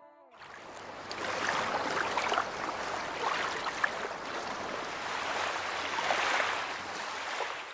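Sea water lapping and splashing, with small splashes through an even wash. It fades in about half a second in and fades away near the end.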